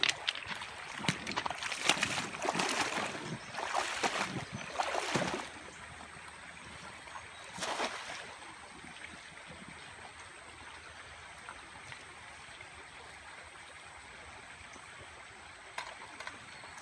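A cast net slaps down on a shallow stream with a splash about eight seconds in, over the steady burble of flowing stream water. Irregular louder noises come in the first five seconds.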